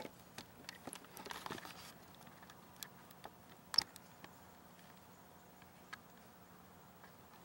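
Faint scattered clicks and light rustling, with a brief rustle about a second and a half in and one sharper click a little before four seconds in.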